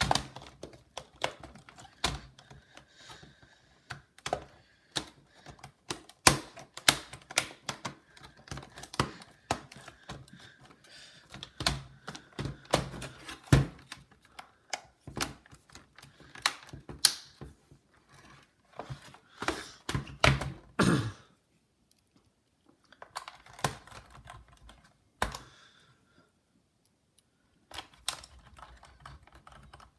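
Irregular plastic clicks, taps and snaps as the plastic casing parts of a Dell Inspiron 1545 laptop are pressed and clipped into place, with a couple of short pauses. The clips are not seating properly.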